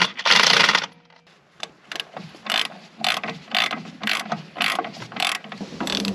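A short burst of an impact wrench hammering at a nut on truck steering linkage. After a pause, a hand ratchet wrench clicks in repeated strokes, about two a second.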